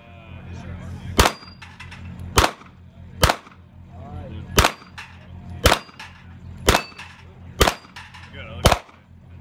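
Pistol shots fired singly, eight of them, about one a second.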